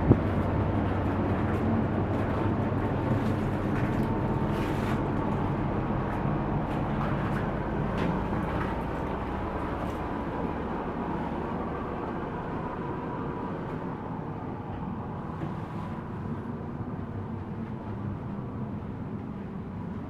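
Steady low hum and rumble of a car ferry's engines and onboard machinery, heard from an open balcony deck, with a few faint clicks. It grows steadily quieter as the listener moves indoors into the cabin.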